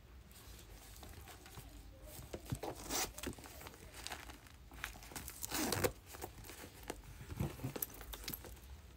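Rustling, crinkling handling noise as a small Coach wristlet and card case are turned over and opened by hand, in uneven bursts with the loudest scrape about five and a half seconds in.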